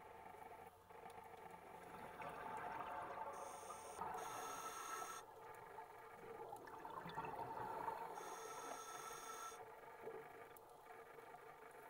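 Scuba breathing heard underwater: a diver's regulator hissing and bubbling in two breaths, about five seconds apart.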